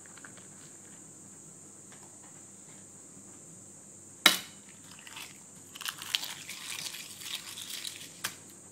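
A hand crushing and pressing down slices of bread on a soggy sandwich: a sharp knock about four seconds in, then a second and a half of dense, irregular crackling that ends in another sharp click.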